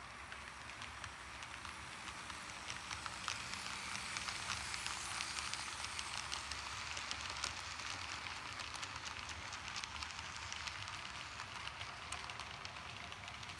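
Model freight train cars rolling past close by: a steady rattle of small wheels on the track, full of tiny clicks, that grows louder and then eases off as the cars go by.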